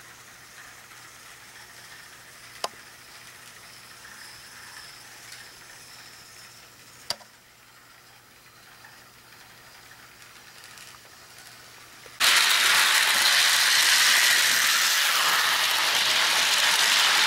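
HO-scale model train running on its track: at first a faint mechanical whirr with two sharp clicks, then about twelve seconds in a loud, steady rattle of wheels and motor begins suddenly as the train passes close by.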